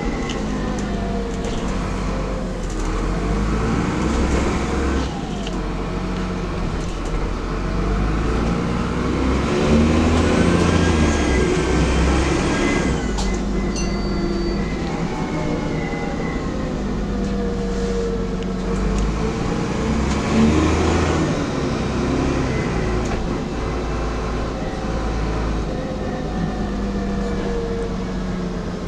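Dennis Trident double-decker bus heard from on board, its diesel engine and turbocharger pitch rising and falling as it accelerates through the gears and eases off, with the turbo whistle clearest around ten to thirteen seconds in. A short high beep sounds about halfway through.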